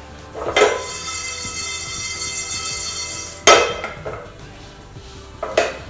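A spatula knocking against a stainless steel pan while fenugreek seeds are stirred and dry-roasted in it. There are three knocks, about half a second in, near the middle and near the end, and the pan rings for a few seconds after the first.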